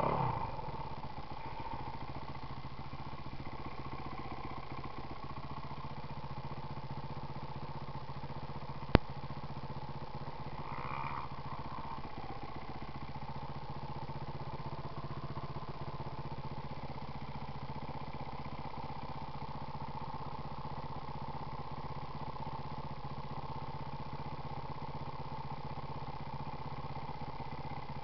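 Kawasaki KX450F dirt bike's single-cylinder four-stroke engine idling steadily while the bike stands still. A single sharp click comes about nine seconds in.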